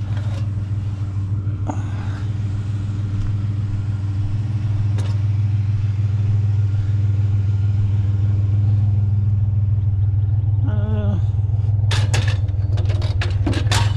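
A motor vehicle's engine and road rumble, a steady low hum that grows a little louder. Several sharp clicks and knocks come in the last few seconds.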